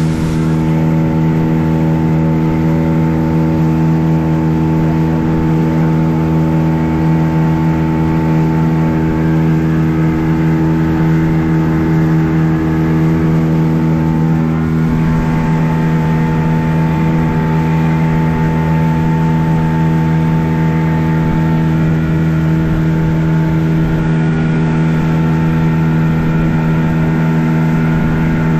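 Boat's outboard motor running steadily at constant speed, a loud even drone over a haze of rushing noise.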